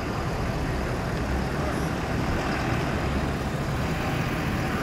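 Pickup trucks towing enclosed trailers driving slowly past in a convoy: a steady low rumble of engines and tyres.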